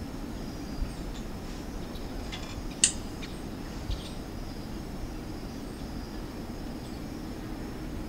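Quiet night-time room ambience: a steady low hum with a faint, continuous high insect trill like crickets. A sharp click about three seconds in and a soft knock about a second later.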